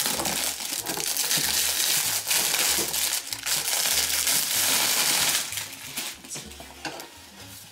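Clear plastic wrap crinkling loudly as it is pulled off a gift box, dying down about five and a half seconds in.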